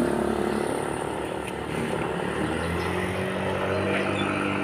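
Motorcycle engine running steadily at low revs, a smooth even drone.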